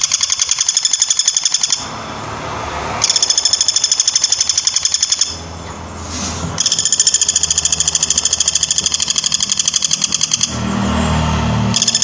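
Woodpecker giving a rapid, high rattling call, many notes a second, in long runs broken by three short pauses.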